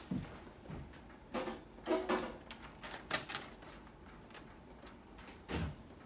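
A few separate knocks and clunks, about four spread over several seconds, as of objects being handled on a workbench, with quiet room tone between them.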